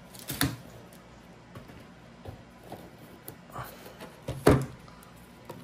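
Trading cards being handled on a tabletop: light scattered taps and rustles of card stock and plastic sleeves, with a sharp knock about half a second in and a louder one about four and a half seconds in.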